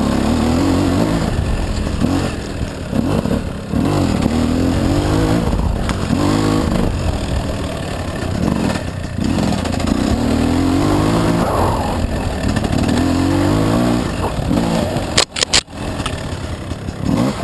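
Gas Gas dirt bike engine revving up and down over and over as the throttle is opened and closed, with a few sharp knocks near the end.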